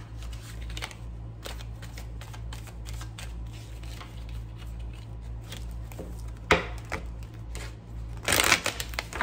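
Tarot cards being shuffled and handled: a run of soft, irregular card taps and slaps, with a sharper snap about six and a half seconds in and a brief rustle near the end, over a steady low hum.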